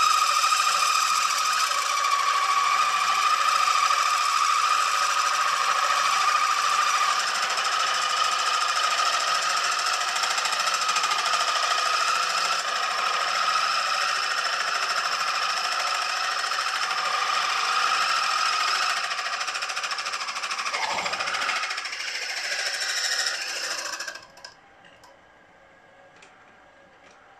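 Milling machine spindle driving a boring head that cuts the 2-inch low-pressure cylinder bore of a model traction engine's cylinder-block casting: a loud, steady rattling machining noise with a high whine. It stops abruptly near the end, leaving a few faint clicks.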